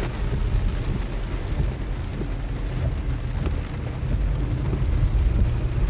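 Rain hissing steadily on a moving car, over the low rumble of the engine and tyres on a wet road.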